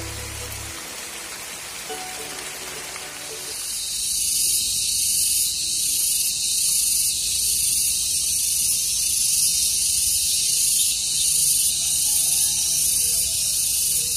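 Background music for roughly the first three seconds, then a loud, high-pitched hiss that pulses about twice a second.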